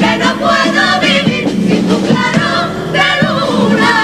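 Mostly female carnival comparsa chorus singing the refrain of a cuplé in two-part harmony, with Spanish guitars accompanying.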